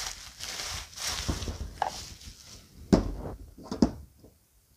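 Cardboard and crumpled kraft packing paper rustling as a candle is unpacked from its box, then two sharp knocks, about a second apart, as things are set down on the table.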